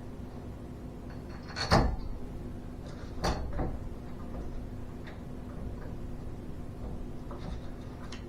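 Garage door torsion spring hardware being fitted to its mounting plate: two sharp metal clanks at about two and three seconds in, then fainter clicks and taps, over a steady low hum.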